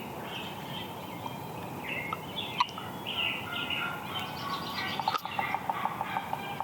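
Wild songbirds chirping and singing, many short calls overlapping. A quick run of lower, evenly spaced notes starts about five seconds in.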